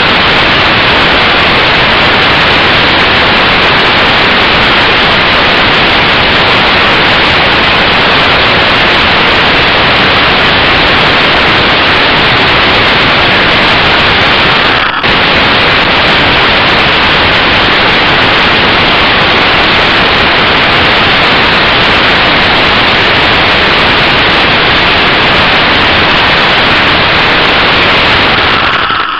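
Loud, steady rushing noise overloading the lighter spy camera's tiny microphone while the camera is up in the air, with a brief dropout about halfway through.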